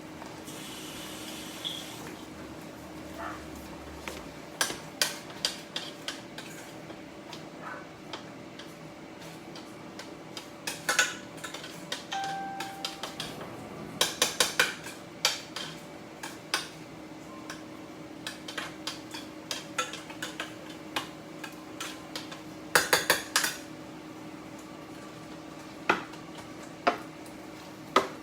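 Kitchen utensils clinking and clacking against pots and dishes at irregular intervals, with clusters of quick knocks, over a steady low hum.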